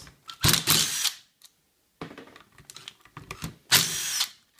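Porter-Cable cordless impact driver with a 10 mm socket hammering briefly twice, undoing the cover bolts on a BMW double VANOS unit: one short burst about half a second in and another near the end, with light clicks of tool and parts between.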